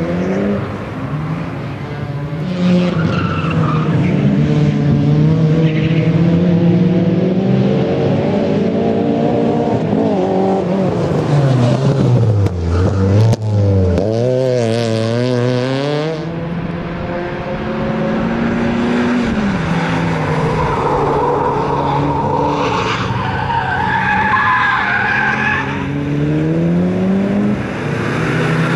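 Peugeot 306 hatchback's engine revving up and down as it is driven hard through the corners of a circuit, with tyres squealing in the later part.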